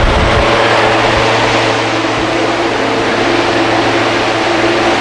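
Steady, loud machine noise: a constant rushing sound with a steady motor hum under it, unchanging throughout.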